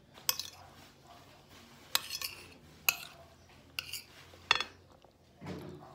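Metal spoon clinking and scraping against a glass bowl of food, five sharp clinks spread over the few seconds, with a brief low sound near the end.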